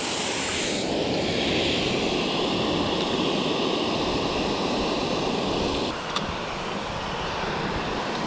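Steady rushing of water pouring from the dam's spillway outlets into the pool below. About six seconds in it drops a little, with one short click.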